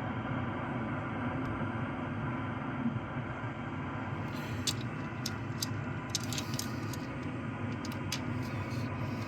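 Steady background noise with a faint hum, and from about halfway through a few light clicks and taps.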